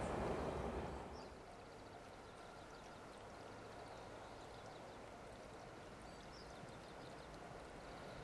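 The noise of a departing 475-series electric train cuts off about a second in, leaving faint outdoor quiet with a few faint high chirps.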